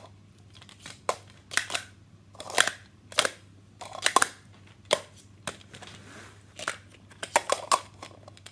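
Plastic Speed Stacks sport-stacking cups clacking as they are stacked up into pyramids and swept back down into stacks: quick clusters of sharp clacks, several groups in a row.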